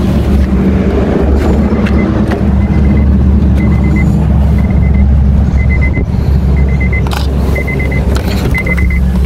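A car's door-open warning chime, sounding in short quick runs of high beeps about once a second from about two seconds in, with the keys left in the ignition. Wind rumbles loudly on the phone's microphone throughout, and a couple of sharp clicks come near the end.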